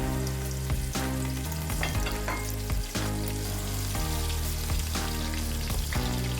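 Chopped spring onion frying in hot palm oil mixed with vegetable oil, sizzling steadily, while a spoon stirs it with scattered knocks against the pot.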